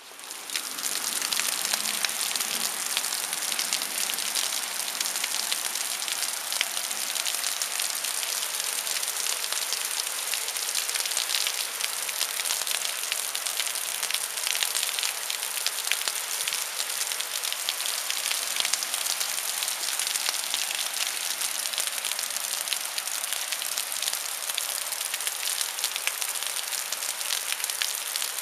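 Thunderstorm rain falling steadily on grass and pavement: a dense hiss of many small drop impacts, starting abruptly about half a second in.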